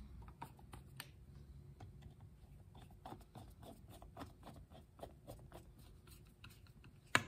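Light, irregular clicks and ticks of a screwdriver turning the bolts that hold the float bowl onto a Briggs & Stratton two-barrel carburetor, with one sharper click near the end.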